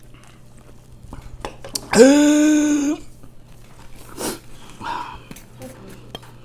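Quiet chewing and mouth noises from eating. About two seconds in, a single loud vocal sound holds one steady pitch for about a second.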